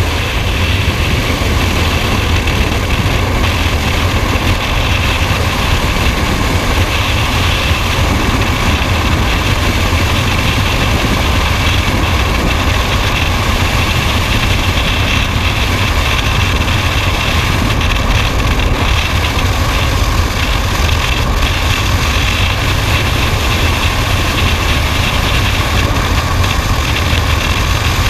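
Freefall wind rushing over a camera microphone during a skydive: a loud, steady rush with a heavy low rumble.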